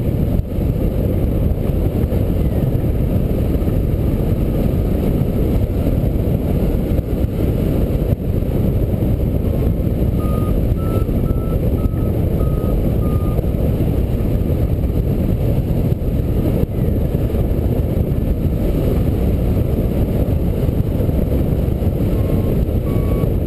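Steady, heavy wind rumble on the microphone of a camera mounted on a hang glider in flight. About ten seconds in, a variometer gives a quick string of short, faint beeps that step up and then slightly down in pitch, the vario's signal of climbing in lift, with two more beeps near the end.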